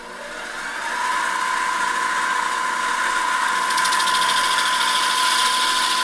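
Mini lathe starting up, its motor and chuck spinning up over the first second into a steady whine. From a little past halfway the tool bit faces the end of a PVC pipe, adding a hissing, fluttering cut: an interrupted cut, because the pipe-cutter end is uneven and the tool touches it only part of each turn.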